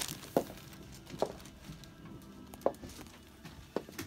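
Four light, sharp knocks about a second apart, like wood tapping on wood.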